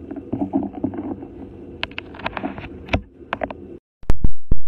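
A steady hum with scattered knocks and rustles, which cuts off abruptly about four seconds in, followed by a quick run of very loud, sharp clicks.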